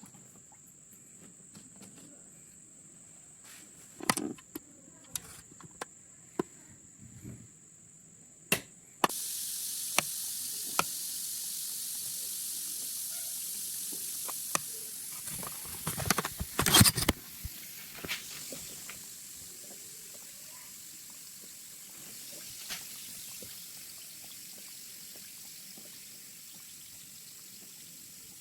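Scattered light clicks and knocks, then a steady hiss that starts suddenly about nine seconds in, with a loud burst of clattering knocks around sixteen to seventeen seconds.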